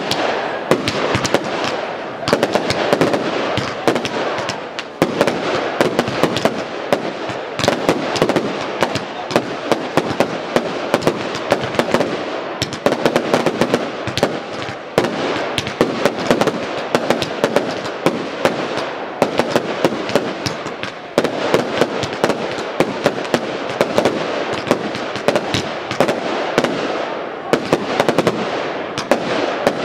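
Aerial fireworks display: shells bursting in rapid succession over a continuous dense crackling of glitter and crackle stars, with only brief lulls.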